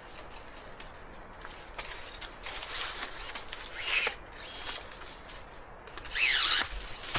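Intermittent rustling and scraping with a few light knocks. The loudest scrape, with a short falling squeak, comes about six seconds in.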